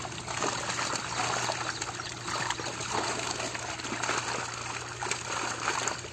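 Many tilapia crowded in a drawn net, thrashing and splashing in shallow water: a continuous churning of small, overlapping splashes.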